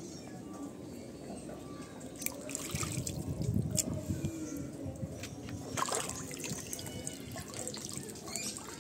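Shallow water splashing and trickling, with a few sharper splashes about two, three and six seconds in.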